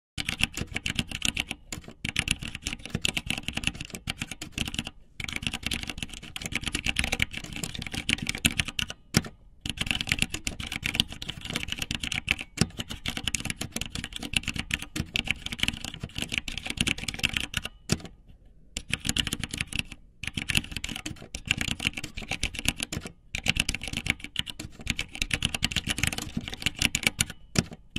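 Computer keyboard typing, a fast, dense stream of keystroke clicks broken by a few short pauses, the longest about eighteen seconds in.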